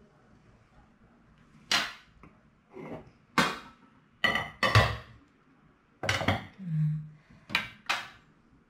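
Utensils knocking and clinking against a metal baking tray, in a string of separate sharp clatters with brief ringing, several in quick pairs.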